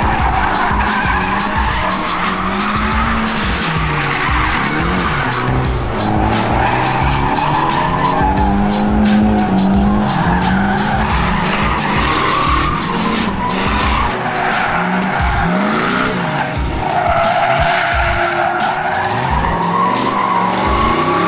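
Drifting pickup truck, its engine revving up and down over and over while the tires squeal and skid through the slides.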